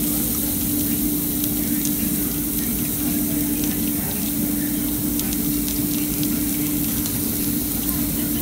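Pork belly slices sizzling on a tabletop Korean barbecue grill: a steady hiss with scattered small crackles, over a constant low hum.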